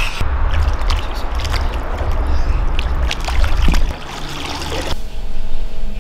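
Sea water sloshing and splashing around people wading in, over a heavy low rumble on the microphone. It breaks off suddenly about five seconds in to a quieter room with a faint steady hum.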